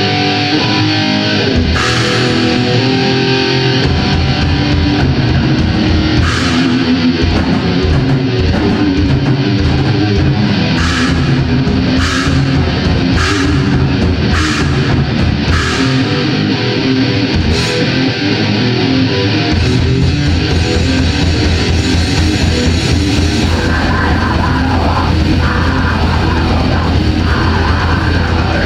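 Death metal band playing live: distorted electric guitar riffs over a drum kit. Cymbal crashes come through the first half, and from about two-thirds of the way in the bass drum runs in a fast, unbroken pattern.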